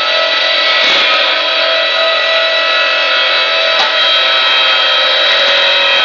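Electrically driven sawmill machinery, a band sawmill and a double log edger, running with a loud, steady whine of several held tones. A sharp knock comes about a second in and another a little before four seconds.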